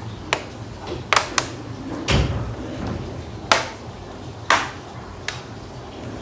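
Sharp clicks and knocks of hard parts being handled on a laptop under repair: about seven separate clicks, with a duller thump about two seconds in.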